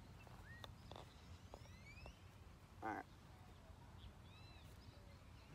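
Quiet open-air ambience: a faint steady low rumble with a few faint high bird chirps, and one short louder pitched call about three seconds in.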